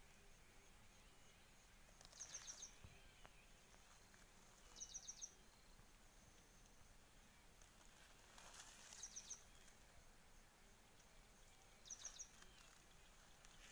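Faint outdoor ambience in which a short, high chirp of four or five quick notes repeats four times, roughly every three seconds.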